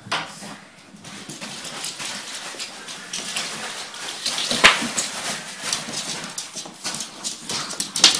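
Pugs scuffling, their claws clicking quickly and irregularly on a laminate wood floor, with a louder knock a little past the middle.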